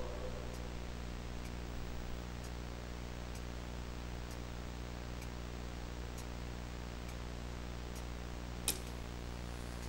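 Grandfather clock ticking slowly, about one tick a second, over a steady low hum, with one sharper click near the end.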